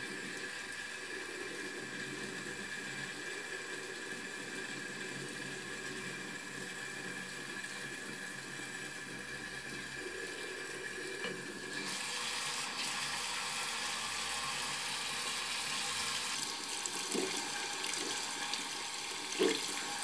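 Tap water running into a sink while a soapy makeup sponge is rinsed in the stream; the rush of water grows louder about twelve seconds in, with a couple of small splashes near the end.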